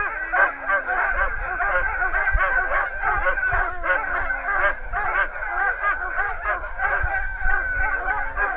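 A yard full of sled dogs barking and yelping all at once in a dense, unbroken chorus, with a few long howls drawn out over it: the din of dogs harnessed and excited to run.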